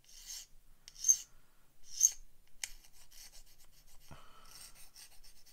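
Round metal file scraping across a plastic model-kit part in several short strokes, then a longer scrape near the end, cleaning sprue burrs off the part.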